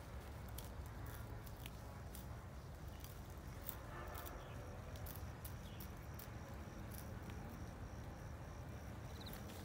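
Faint outdoor ambience: an insect chirping in a steady series of short, high, evenly spaced pulses that starts about halfway through, over a low rumble with scattered small clicks.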